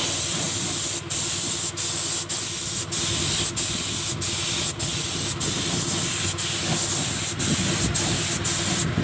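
Compressed-air paint spray gun hissing steadily while painting the inside of a car body, with very short breaks roughly every half second to second.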